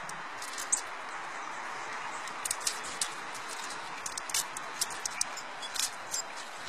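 Scattered small sharp clicks and ticks, thickest in the second half, as a squirrel takes sunflower seeds and nuts from a bare hand, over a steady hiss.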